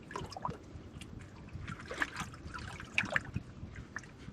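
Faint, irregular small drips and trickles of water.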